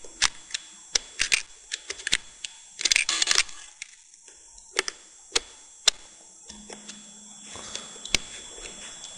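Irregular clicks, taps and knocks of fingers handling AA batteries and the plastic of a clock radio's battery compartment.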